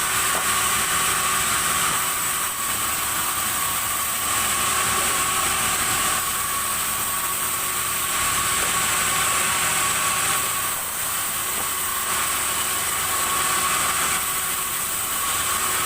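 Sawmill saw running steadily through timber: a constant high whine over a dense, even hiss.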